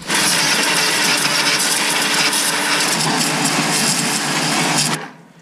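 Pressure washer gun spraying a jet of water into a truck's engine bay, a loud steady hiss with the Ryobi pressure washer's pump running underneath; the spray cuts off suddenly about five seconds in.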